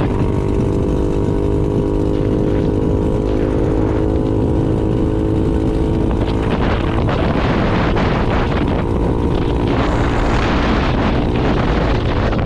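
2022 Honda Navi's small single-cylinder four-stroke engine running at a steady cruising speed, with heavy wind noise on the microphone. The engine's even note fades back under the wind a little past halfway.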